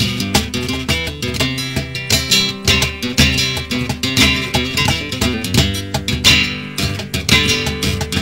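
Flamenco guitar playing por alegrías without singing: strummed chords mixed with quick picked runs.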